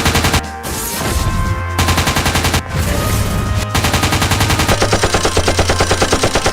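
Rapid machine-gun-style gunfire in long runs of fast repeated shots, over background music with a steady bass line.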